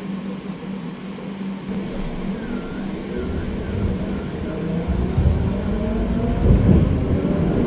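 Inside a Pesa 122NaL Swing low-floor tram pulling away: a steady ventilation hum, then, about three seconds in, the traction motors' whine rises in pitch and the rumble of the wheels on the rails grows louder as the tram accelerates.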